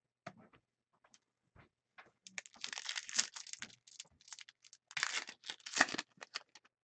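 A foil trading card pack being torn open and its wrapper crinkled, coming in crackling spurts after a few light clicks.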